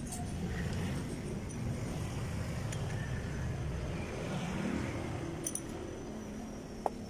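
A steady low rumble from a motor vehicle engine running, with a few light metallic clicks from hands working on a truck's wheel hub and nut.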